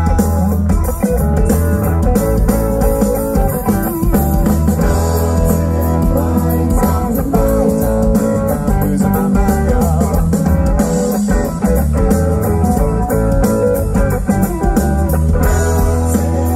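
Live rock band playing loud, a guitar-led passage with electric guitars over bass guitar and drums, heard through the PA from within the audience.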